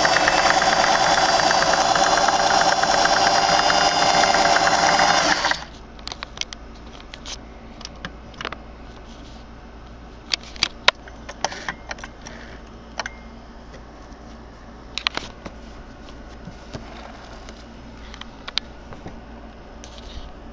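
Singer 401A Slant-O-Matic sewing machine running steadily as it stitches fabric, stopping suddenly about five and a half seconds in. After that only scattered light clicks and taps.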